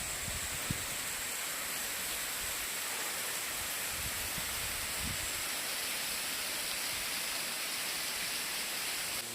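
Steady hiss of the Mukabaki waterfall falling, running low with only a thin flow of water coming down.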